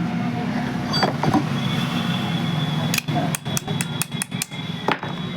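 A quick run of sharp metallic clicks and knocks, about eight in two seconds past the middle, over a steady low hum: tools working on the fan's metal parts as its nuts and bolts are tightened.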